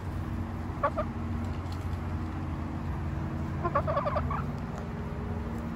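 A hen clucking: two short clucks about a second in, then a quick run of clucks around four seconds in, over a steady low hum.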